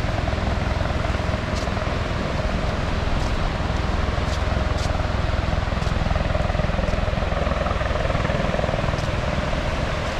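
Ocean surf washing onto the beach with wind rumbling on the microphone, a steady rushing noise.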